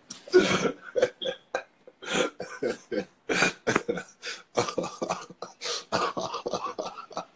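A man laughing hard, unable to stop, in a long run of short, uneven bursts, about two or three a second.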